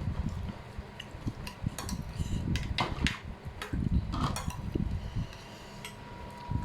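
Eating sounds: a spoon clicking and scraping on a plate among soft chewing, in scattered irregular taps. A faint steady high tone starts about five seconds in.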